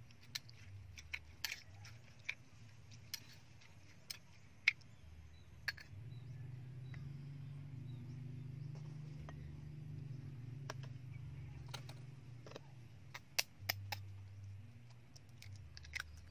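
Metal spoon clinking and tapping against ceramic bowls in scattered sharp clicks as ingredients are stirred and handled, over a low steady hum.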